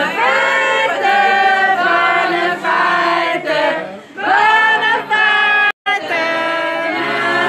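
A group of people singing a birthday song together, mixed men's and women's voices, around a cake with a lit candle. The sound cuts out for an instant near the end.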